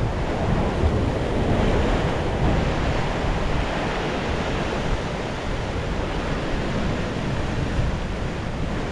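Ocean surf breaking and churning into white water, a steady rushing wash, with wind noise on the microphone.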